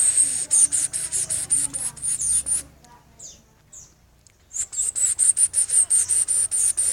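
White-eye (pleci) calling in two long runs of rapid, very high-pitched notes, about seven a second, with two single notes in the pause between them about halfway through. This is the call a female white-eye gives to draw a male.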